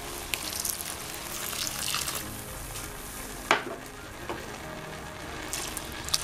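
Milk poured into a hot pot of freshly cooked rice, sizzling on the hot pan while a silicone spatula stirs and scrapes. One sharp knock about three and a half seconds in.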